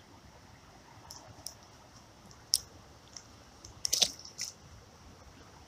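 A few scattered short clicks and crunches of hands working close to the microphone, with the loudest cluster about four seconds in, over a faint steady background.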